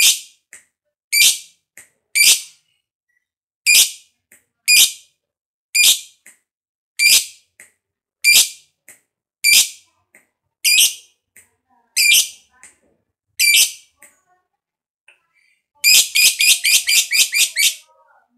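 Lovebird calling: sharp, shrill chirps about one a second with fainter ones between, then near the end a fast run of about ten chirps in two seconds, the chattering trill that lovebird keepers call ngekek.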